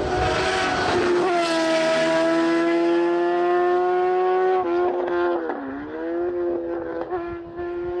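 BMW S1000RR inline-four motorcycle engine in a Fiat 500 hillclimb prototype, running at very high revs as the car passes and pulls away. The high-pitched note holds nearly steady and slowly climbs, then breaks off, dips and climbs again about five to six seconds in.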